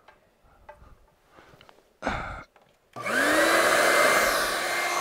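A newly assembled 4 HP, 8-gallon Shop Vac wet/dry vacuum is switched on about three seconds in. Its motor spins up with a rising whine, then runs steadily with a loud rush of air. Before that come faint handling clicks and a short burst of noise about two seconds in.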